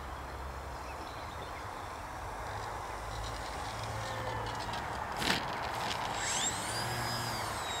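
Electric motor and propeller of an E-flite Turbo Timber Evolution RC plane as it rolls on grass after a full-flap landing, with a single sharp knock a little past halfway. The motor then spools up for the take-off, a whine rising quickly in pitch and holding high near the end.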